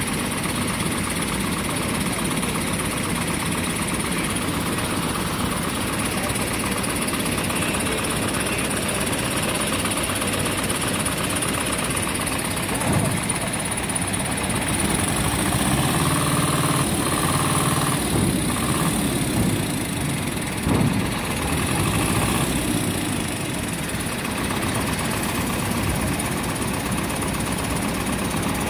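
Diesel engine of a heavy-haul truck running steadily as its multi-axle low-loader trailer, carrying a train car, is moved; the engine note rises for several seconds around the middle.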